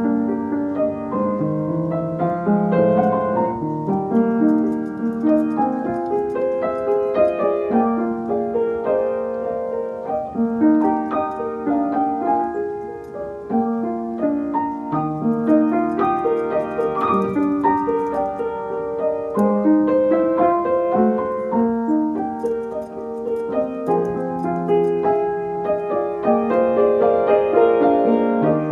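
Background piano music, a continuous flowing melody of single notes and chords.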